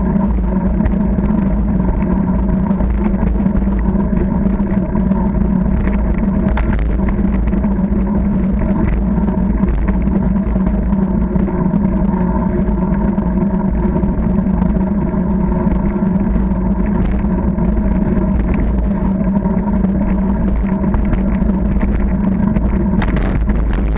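Steady wind and tyre rumble picked up by a camera mounted on a moving bicycle on a tarmac path, with a steady hum and scattered small clicks and knocks from bumps and rattles.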